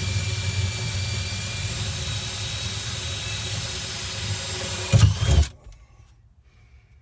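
Cordless drill running steadily, boring a hole, with a thin whine; a couple of loud knocks a little after five seconds in as it stops.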